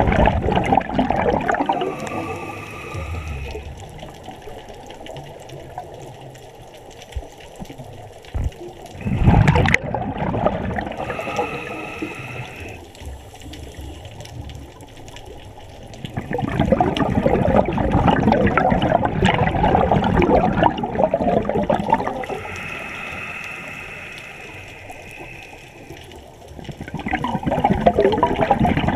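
Scuba breathing through a regulator underwater. Rushing, bubbling exhalations alternate with three shorter inhalations that hiss with a steady high whistle.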